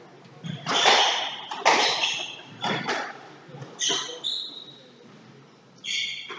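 Squash rally: the ball cracks off rackets and walls about once a second, with shoes squeaking on the wooden court floor. A quieter stretch of about a second and a half comes before a last burst of squeaks near the end.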